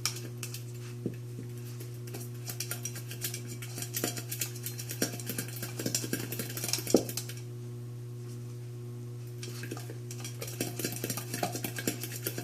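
A puppy's empty food bowl clattering and clinking in quick small knocks as the puppy works at it, with the loudest knock about seven seconds in and a short lull after it, over a steady low hum.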